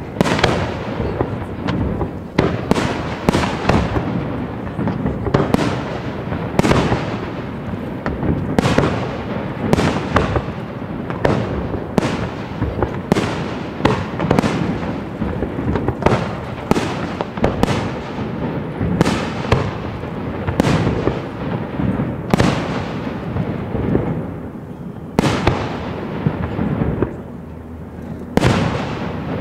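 Large class F4 display fireworks: aerial shells bursting one after another, about one sharp bang a second, each trailing off in a long echo over a continuous rumble.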